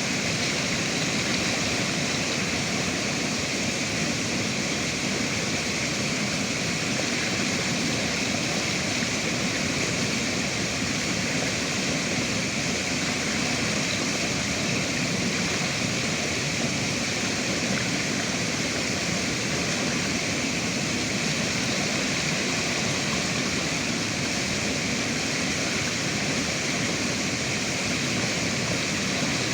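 River water rushing steadily, an even unbroken noise with no changes.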